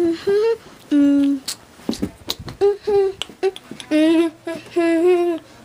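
A person's voice humming a tune in a string of short held notes, with a few sharp clicks between the notes.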